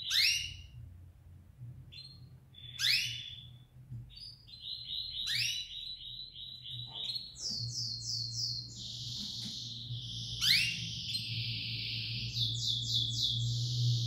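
Domestic canary singing: rapid trilled runs of repeated notes and sharp falling whistles, with a long buzzing trill in the second half. A faint steady low hum runs underneath.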